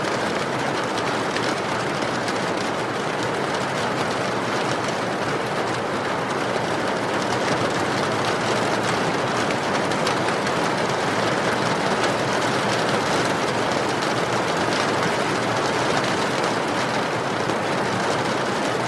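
Steady rain falling: an even hiss with a fine patter of individual drops.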